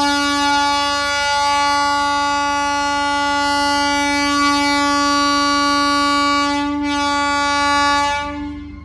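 DEMU passenger train's horn sounding one long, steady blast of about eight seconds that fades out near the end.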